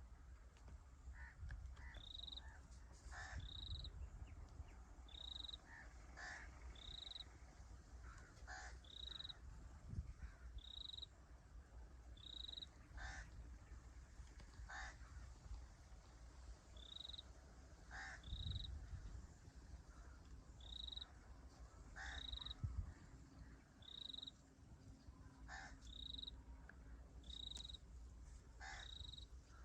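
Faint birdsong in open country: one bird repeats a short high note about once a second, and harsher, coarser calls break in every few seconds, over a low steady rumble.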